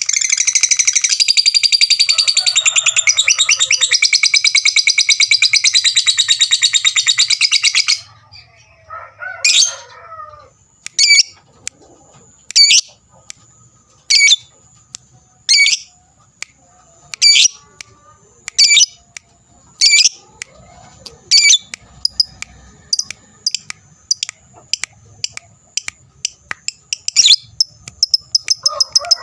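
Lovebird doing its long ngekek: a loud, very rapid, continuous high chattering trill that cuts off abruptly about eight seconds in. It is followed by single sharp high chirps about every second and a half.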